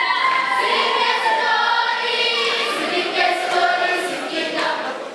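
A choir of schoolchildren singing together, holding long notes.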